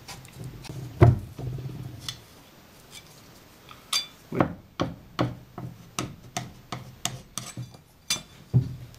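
Sawdust-and-glue wood filler being worked on a wooden board: stirring with a wooden stick, a sharp knock about a second in, then a flat knife scraping the paste up and pressing it into gaps in a wooden deck in short strokes about two a second from about four seconds in.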